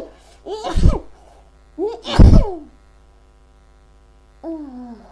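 A woman sneezing twice in a sneezing fit, each sneeze a short voiced intake falling in pitch and then a sharp burst, the second one the loudest. Near the end a shorter voiced gasp falling in pitch.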